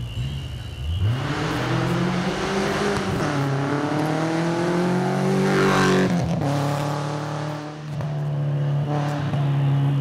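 Subaru Impreza rally car's flat-four engine accelerating hard past on a gravel stage. The engine note climbs from about a second in, peaks in a loud rush as the car goes by near six seconds, dips briefly about two seconds later and then holds steady as the car pulls away.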